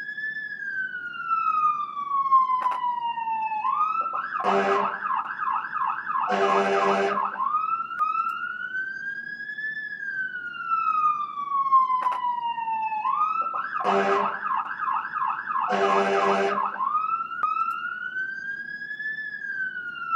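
Emergency vehicle siren in a slow wail, rising and falling, that twice breaks into a fast yelp with short horn blasts, repeating in a loop.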